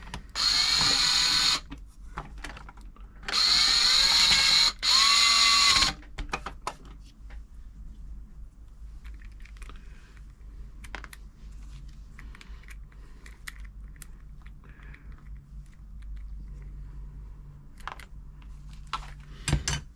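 Cordless electric screwdriver whirring in three short runs, the last two close together, as it drives screws in; then light clicks and handling of screws and parts.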